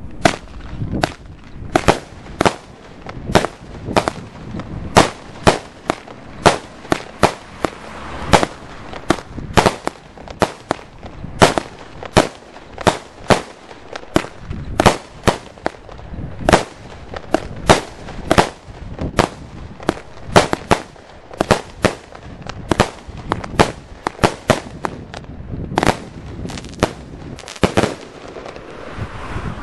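A 36-shot consumer fireworks cake firing: a steady run of sharp bangs, roughly one or two a second, that stops about two seconds before the end.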